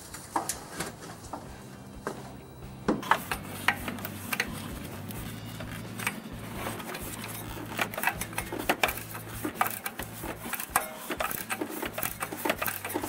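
Ratchet with a 13/16 deep socket clicking in short irregular runs as it turns the nut of a pulley installer tool, drawing the power steering pump pulley onto its shaft.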